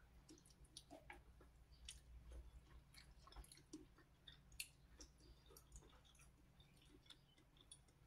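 Faint chewing with many small mouth clicks and wet ticks, from someone eating a spoonful of porridge.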